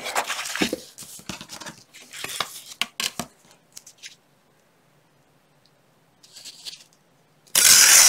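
A sheet of patterned scrapbook paper rustles with a few light knocks as it is handled and laid flat on a cutting mat. About seven and a half seconds in comes one loud rip as a strip of the paper is torn along the wavy edge of a clear tear ruler.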